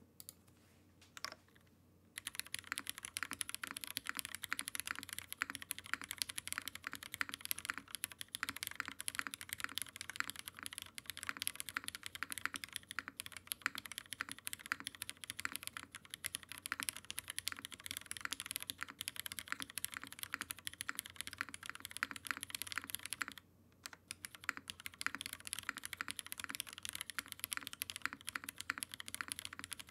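Continuous fast typing on a Matrix Lab Navi mechanical keyboard with Cherry Hyperglide MX Black linear switches, GMK keycaps, a full aluminium plate and no foam: a dense stream of key clacks. Two single key presses come first, steady typing starts about two seconds in, and it breaks off briefly about three-quarters of the way through before carrying on.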